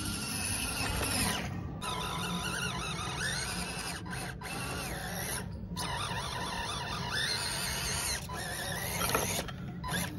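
Electric motor and gears of an RC Suzuki Jimny scale model whining as it drives. The pitch rises and falls with the throttle several times, and the sound breaks off abruptly a few times.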